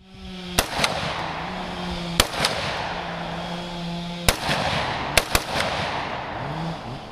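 Gunshots at a range: about eight sharp reports at irregular intervals, some in quick pairs, over a steady low hum.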